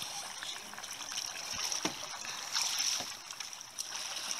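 Sea kayak paddling: water trickling and splashing off the paddle blades, with a few light paddle strokes over a steady hiss.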